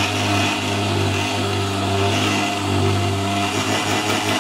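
Small electric motor running steadily: a low hum under a rushing noise.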